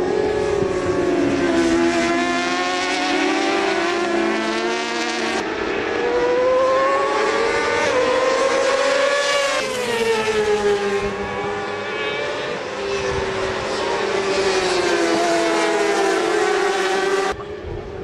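Racing motorcycle engines at high revs, several at once, their pitch rising and falling as the bikes accelerate and slow through the corners. The sound changes abruptly about five seconds in and again near the end.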